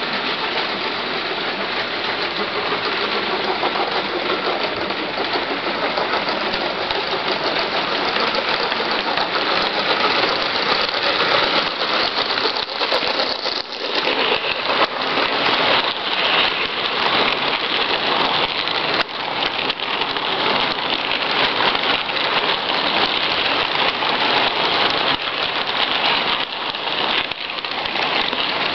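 Model train running close past on its track: a steady, dense rattling clatter of wheels and motors from two model steam locomotives, a Baldwin L1 2-8-2 and a USRA 0-8-0, and their cars. It grows a little louder and more uneven around the middle as the locomotives go by.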